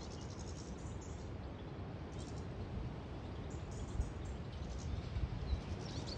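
Small songbirds twittering: scattered short, faint high chirps over a steady low background rumble.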